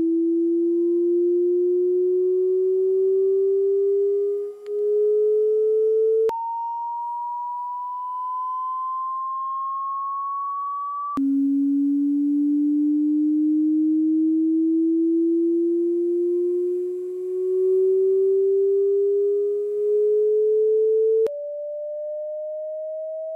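A pure sine-wave test tone slowly gliding upward in pitch, played through car cabin speakers: first through the Lamborghini Diablo's old blown factory speakers, then through new Pioneer Z-Series speakers. The tone jumps abruptly to a higher pitch about six seconds in, drops back to a low rising tone about eleven seconds in, and jumps up again near the end.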